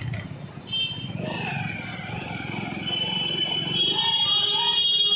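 Street traffic on a waterlogged road, vehicles moving through standing water with a low rumble, and some voices. High steady tones join about halfway in.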